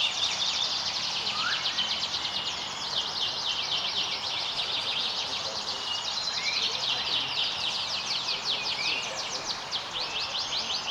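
Canaries singing: fast, continuous high trills and chirps with short whistled notes, over a steady background hiss.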